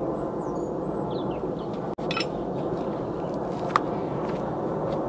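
Military aircraft flying overhead, roaring away: a loud, steady roar with no clear pitch.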